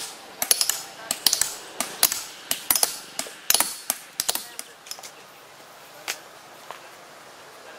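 Hand hammer strikes on stone blocks during stone cutting: sharp, irregular metallic clinks, often two or three close together. The strikes come a few times a second, then thin out to two single clinks about four and a half seconds in.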